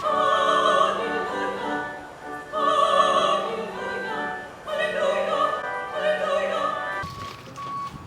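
Operatic singing: a held, wavering high voice with accompaniment in a few long phrases, cutting off suddenly about seven seconds in.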